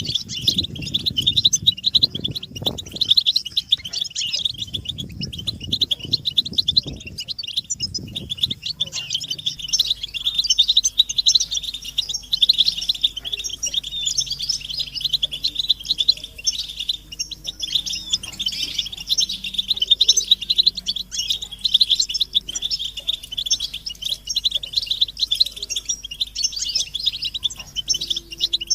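European goldfinches twittering and chattering without a break, a dense stream of rapid high chirps: the excited group calls used to stir a male goldfinch into song. Low rumbling thuds sound under the calls for the first eight seconds or so.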